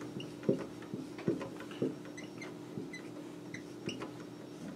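Dry-erase marker drawing short arrows on a whiteboard: a series of short taps and strokes with small squeaks, over a faint steady hum.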